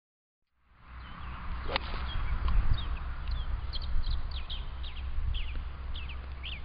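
Songbirds chirping in many short, falling notes, over the low rumble of wind on the camera microphone. A single swish of a golf club's practice swing comes about two seconds in.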